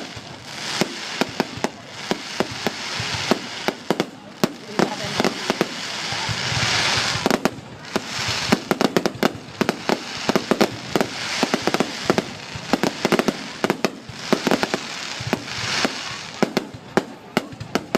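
Fireworks and firecrackers going off: a dense, irregular run of sharp bangs and cracks, several a second, over a crackling hiss that swells a few times.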